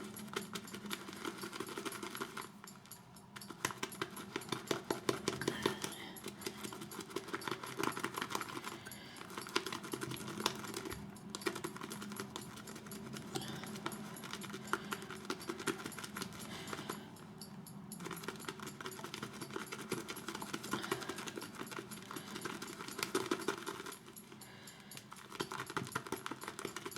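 Boar-bristle shaving brush whipping shaving soap and water into lather in a bowl: a fast, continuous wet swishing and crackling, broken by a few brief pauses. The lather is being built up to stiff peaks.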